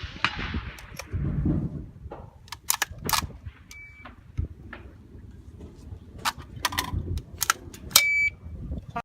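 Rifle shots at a steel match: several sharp cracks spread over a few seconds, with two short electronic beeps from a shot timer about four seconds apart. The second beep comes with the loudest crack, near the end.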